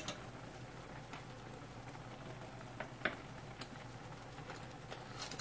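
Ramen boiling in stainless pots: a faint steady bubbling hiss with scattered small ticks, and a light clink of wooden chopsticks against the pot right at the start.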